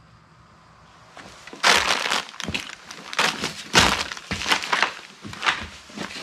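Footsteps crunching over debris on the floor, starting about a second and a half in and going on about one step every two-thirds of a second.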